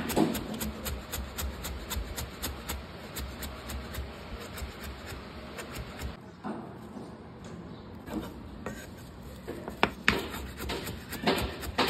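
Food being prepared by hand: a run of light taps, roughly three a second, over rubbing and rustling, quieter for a few seconds past the middle, then a few sharper knocks near the end.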